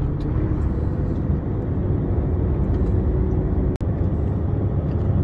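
Semi-truck's engine and road noise heard from inside the cab as the lorry drives slowly, a steady low rumble. The sound cuts out for an instant about four seconds in.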